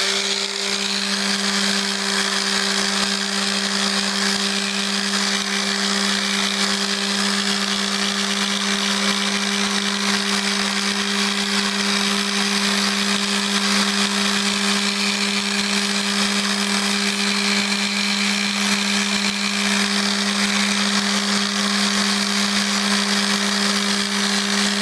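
Electric mouse (orbital detail) sander running at a steady speed: a constant motor hum over the hiss of its sanding pad on balsa wood.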